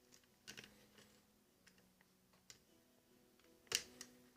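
Faint, scattered clicks of a lock pick working the pin stacks inside a Corbin Russwin lock cylinder under tension, with one sharper click near the end as a pin sets.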